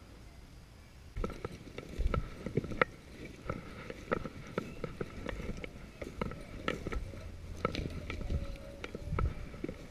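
Footsteps crunching and rustling through dry grass and patchy snow, starting about a second in as irregular small cracks and crackles.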